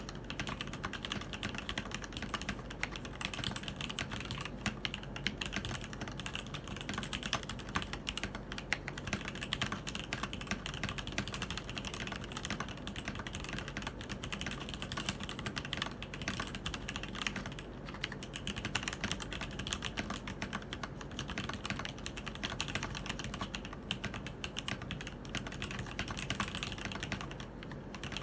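Keydous NJ80 mechanical keyboard with TTC ACE switches being typed on fast, a dense, continuous stream of keystroke clicks.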